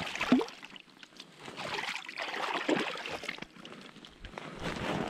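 Hands being rinsed in the water of an ice-fishing hole: irregular splashing and trickling.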